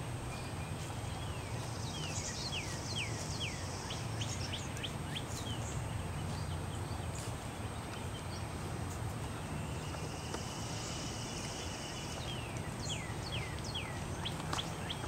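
Songbirds singing in the trees: two runs of quick down-slurred whistled notes, one a couple of seconds in and one near the end, with a buzzy trill in between, over a steady low rumble.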